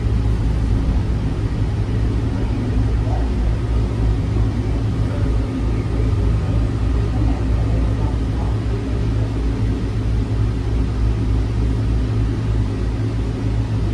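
Steady low rumble inside the car of the cable-pulled Pearson airport Terminal Link people-mover train running along its elevated guideway, with a faint hum of steady tones over it.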